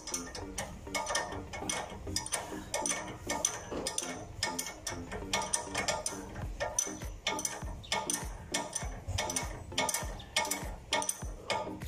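Hand ratchet wrench clicking in quick runs of strokes as a nut behind the front brake rotor is turned.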